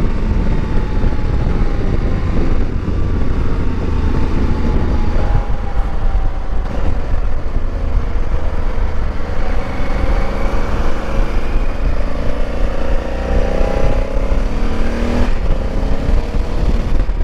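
Motorcycle engine running under way at road speed, its pitch falling slowly over the first several seconds and then dipping and rising again later, over a steady low rumble.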